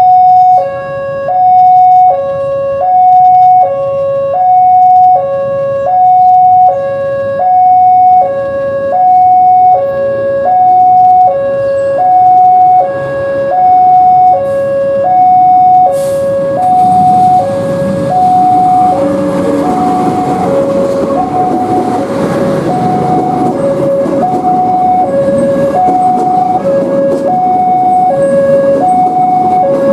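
Station approach bell (genta) sounding as a two-tone electronic warning, switching between a higher and a lower tone about every three-quarters of a second, announcing an approaching train. From about halfway in, the rumble of the train entering the station rises beneath it.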